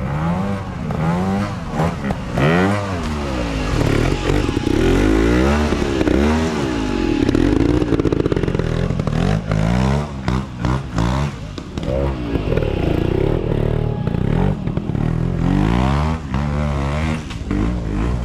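Trials motorcycle engine blipped and revved up and down again and again as the bike is ridden through a section, with short clattering knocks in between.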